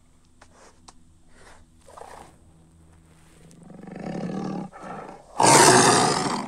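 Recorded tiger roar from a Google 3D animated tiger: a low growl swells about halfway through, a brief second growl follows, then a loud full roar near the end.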